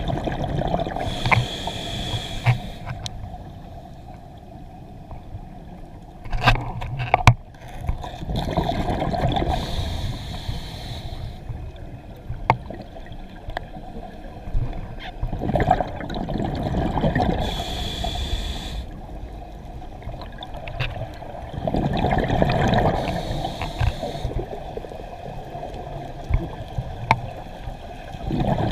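Scuba diver breathing through a regulator underwater: a gurgling rush of exhaled bubbles every six or seven seconds, with a thin hissing inhalation between them. A few sharp clicks come about six to seven seconds in.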